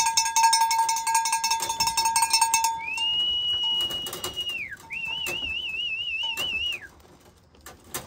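A rapid ringing rattle at one steady pitch, cut off about two and a half seconds in. Then someone whistles a long steady note with a rise and fall at its ends, and next a warbling whistled note, the kind of whistle a fancier uses to call pigeons into the loft.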